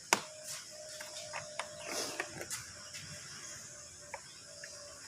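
Scattered metallic clicks and knocks of mechanic's tool work, with one sharp click just after the start, over a faint on-and-off hum.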